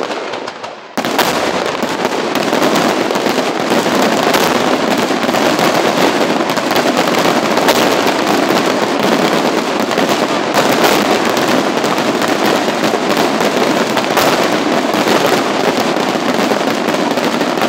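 Daytime aerial fireworks barrage: a dense, continuous rattle of shell reports and firecracker bangs high overhead, starting abruptly about a second in.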